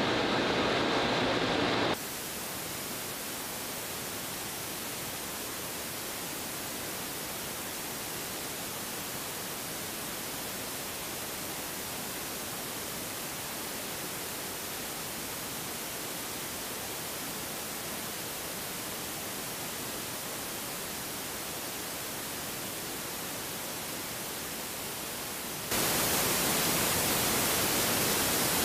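Steady, even hiss like static, with no tone or rhythm in it. It drops abruptly about two seconds in and comes back louder and brighter near the end.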